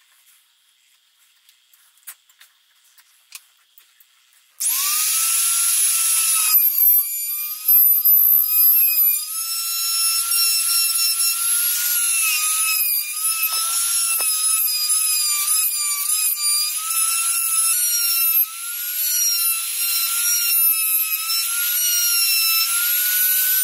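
A few faint clicks of a utility knife scoring wood, then about four and a half seconds in a compact trim router starts with a rising whine and runs at high speed, its pitch wavering as the bit cuts the recess for a wooden butterfly (bowtie) inlay.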